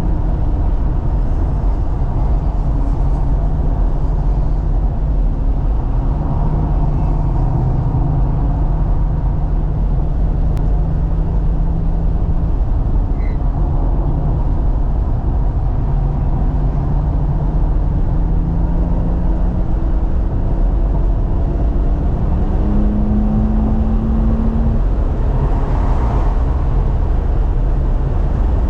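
A 2018 BMW M3 Competition's twin-turbo straight-six, heard under hard track driving with a six-speed manual. The engine note climbs and drops again and again as the car accelerates and changes gear, over a heavy, steady rumble of tyre and road noise.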